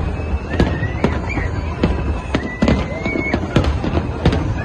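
Fireworks display: shells bursting with sharp bangs about twice a second over a steady low rumble. A high, wavering whistle sounds over the top through the middle.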